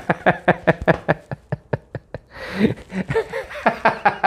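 A man laughing hard: a long run of quick ha-ha bursts, about five a second, broken about halfway through by a loud gasping in-breath before the laughter picks up again.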